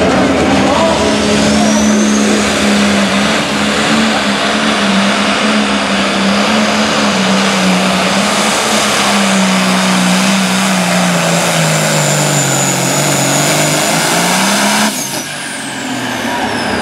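Pulling tractor engine, a modified John Deere, running flat out as it hauls a weight-transfer sled; its pitch holds steady, sinks over the last few seconds of the pull, then cuts off abruptly near the end as the run finishes.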